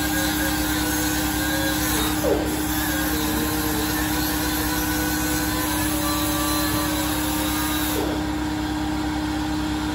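Electric shop air compressor running steadily, its motor and pump giving a constant hum with a rapid, even pulsing underneath.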